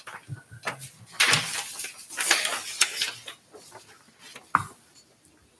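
Sheets of paper rustling and shuffling close to table microphones as they are handled, with one sharp knock on the table about four and a half seconds in.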